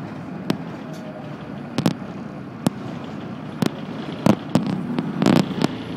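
Moving bus heard from inside the cabin: steady engine and road noise with irregular sharp clicks and knocks of interior rattles, coming more thickly in the last two seconds.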